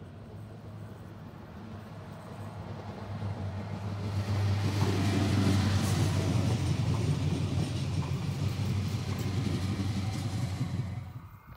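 Südostbahn Stadler FLIRT electric multiple unit passing close by: a rumble of wheels on rail with a steady low hum. It builds from about four seconds in, stays loud as the train goes past, and cuts off suddenly near the end.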